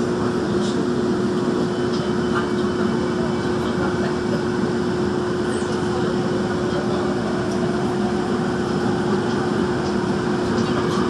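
Daejeon Metro Line 1 train running through a tunnel: a steady rumble and hiss of the wheels on the rails with a steady hum, and a few faint clicks.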